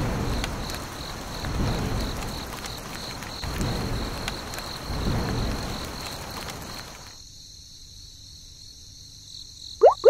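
Rain falling steadily, with low rumbles of thunder swelling a few times, over a steady chirping of crickets. The rain stops suddenly about seven seconds in, leaving the cricket chirping, and right at the end a quick run of rising chirps starts.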